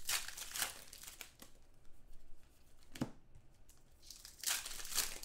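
2015 Contenders football card pack wrappers being torn open and crinkled. The sound comes in several short bursts, the loudest near the end, with a single sharp click about three seconds in.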